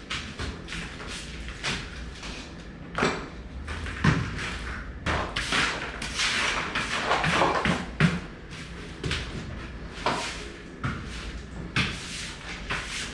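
A run of irregular thumps and knocks mixed with short scraping and rustling sounds, from hands-on installation work on a supply vent in a sheetrock ceiling. The sharpest knocks come about 4 and 8 seconds in.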